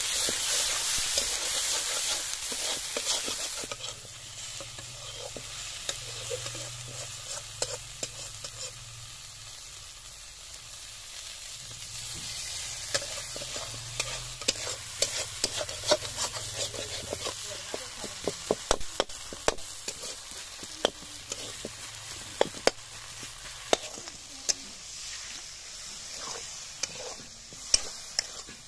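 Spice paste sizzling in a hot iron kadai while a metal spatula stirs and scrapes it. The sizzle is loudest for the first few seconds, then drops. Through the second half there are frequent sharp clicks and scrapes of the spatula against the pan.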